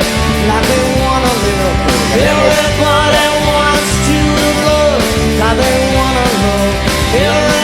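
Background rock music with a steady beat, distorted guitars and a singing voice.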